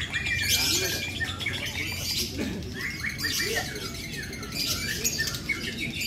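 Caged lovebirds chirping and chattering, with quick runs of short, high, sliding chirps from several birds at once.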